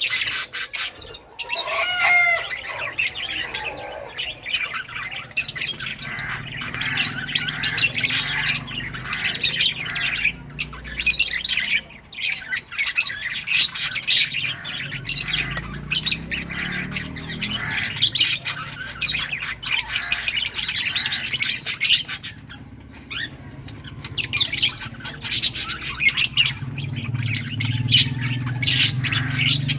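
Several lovebirds chirping and squawking almost without pause, with rapid sharp high-pitched calls and brief lulls.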